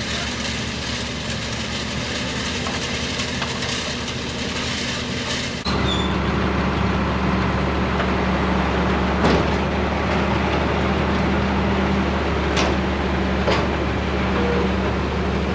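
Engine running steadily. About six seconds in it changes abruptly to a louder, lower steady drone, and a few sharp clicks follow later.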